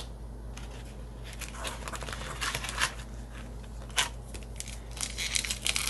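Foil booster-pack wrapper crinkling as it is handled and opened, with irregular sharp crackles starting about a second and a half in and one louder snap near the middle.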